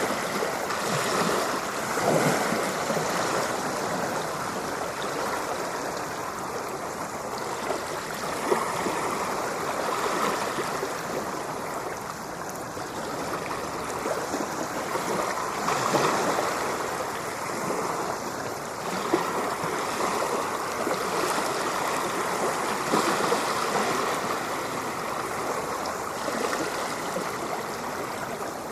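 Ocean waves washing on a shore: a continuous rushing wash that swells and eases every several seconds.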